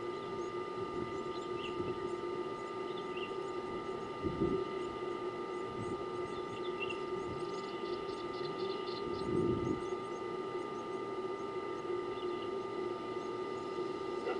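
Steady outdoor hum with several faint steady tones, over which short bird chirps come every second or two. About eight seconds in there is a quick run of ticks, and there are two soft low thumps, about four and nine and a half seconds in.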